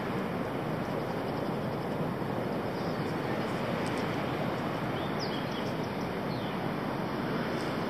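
A steady, even rushing noise outdoors, with a few faint high bird chirps about five seconds in.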